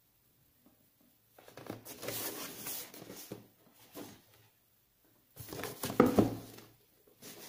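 Hands gripping and turning a cardboard box, a scraping, rustling handling noise in uneven stretches: a long one from about a second and a half in, a short one near four seconds, and the loudest past five seconds.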